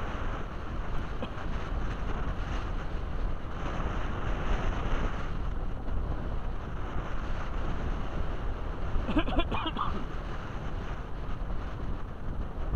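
Strong wind buffeting the action camera's microphone in a steady rumble, over choppy, wind-driven shallow bay water.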